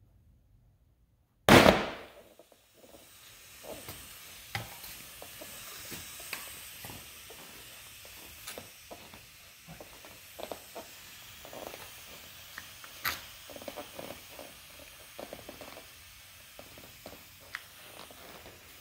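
A motorcycle airbag backpack firing: one sudden loud bang with a short rush of gas about a second and a half in as the cartridge inflates the airbag. After it comes a faint steady hiss with scattered clicks and rustles.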